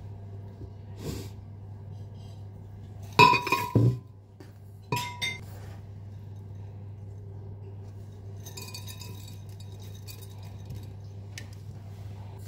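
Glass clinking as carrot pieces are tipped from a glass bowl into a glass blender jar: a quick cluster of ringing clinks about three seconds in and two more a second or so later, over a low steady hum.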